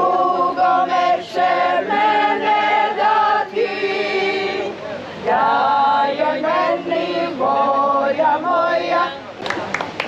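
A women's folk group singing a traditional Croatian song unaccompanied, several voices together holding long notes in phrases. The singing breaks off near the end.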